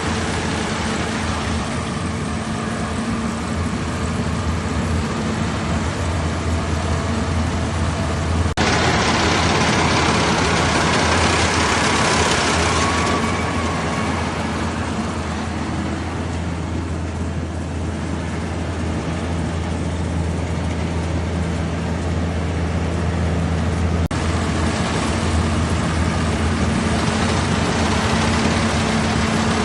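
Rice combine harvester's engine running steadily, with a louder rushing noise for a few seconds about a third of the way in.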